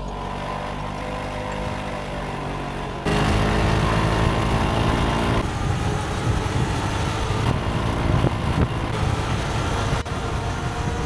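A 125 cc petrol scooter engine runs steadily at cruising speed. About three seconds in it cuts suddenly to louder riding noise from an electric motorbike: rushing wind and road noise over a steady motor hum.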